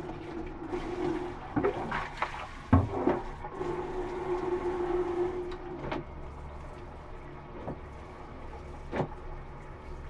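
Water spraying from a handheld shower head into a plastic basin as it fills, with a steady hum in stretches. Several knocks and splashes come through, the loudest about three seconds in.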